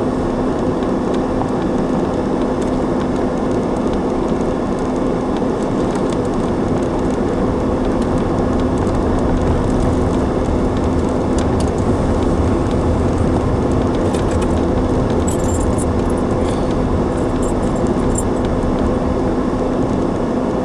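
A car driving at a steady speed: constant engine and tyre noise with a steady hum, and a few light high clicks or rattles a little past the middle.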